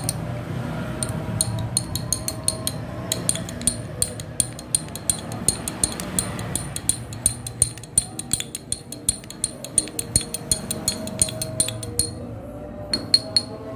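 A spoon clinking against a glass while stirring a kencur, salt and honey drink to mix it, in quick ringing taps about two or three a second that pause briefly near the end before a few more.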